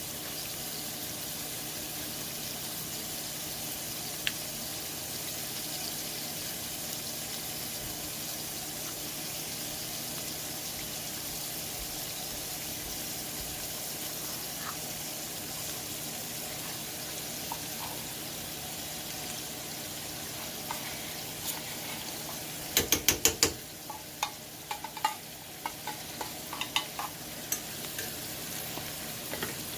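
Shrimp, garlic and onion frying in a pan with a steady sizzle. About two-thirds of the way through, a quick run of about six sharp taps as a utensil strikes the pan, then scattered clinks and knocks of stirring.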